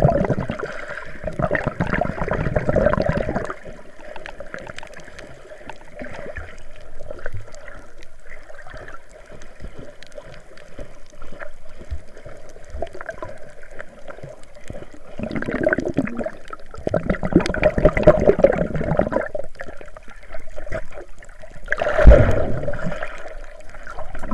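Seawater sloshing and splashing close to the microphone, coming in surges: a long one at the start, a longer one in the second half, and a short, sharp one near the end.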